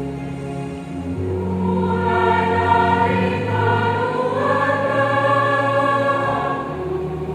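Combined church choir singing held chords in parts. It grows louder about a second in, and the upper voices move up to a higher held chord near the middle.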